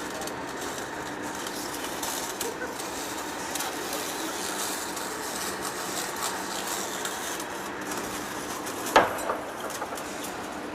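Steady machine-shop hum of a heavy face lathe running, with a sharp metallic knock about nine seconds in and a smaller one just after.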